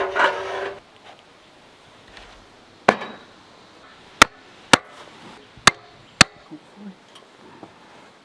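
A bird's call ending within the first second, then a series of sharp knocks: one about three seconds in, and four more, close together, over the next two seconds.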